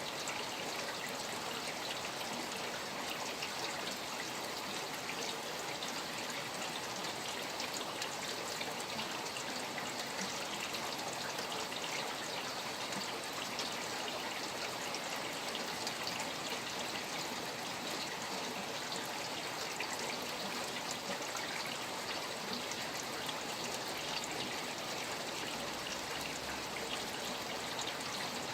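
Steady rain falling beside a flowing stream: an even wash of running water with many fine drop patters.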